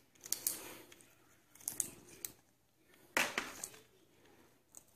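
African grey parrot working at a foraging ball stuffed with vegetables: its beak clicks, scrapes and rustles in three short bouts, about half a second in, around two seconds in and just after three seconds in.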